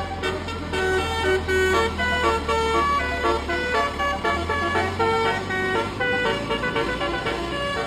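Basuri (telolet) multi-tone musical horn on a vehicle playing a quick melody of short stepped notes, over the steady hum of an engine running.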